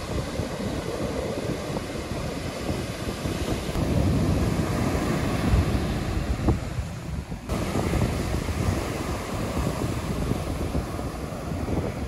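Ocean surf breaking and washing up the beach, with strong wind buffeting the microphone. The noise eases briefly just past the middle.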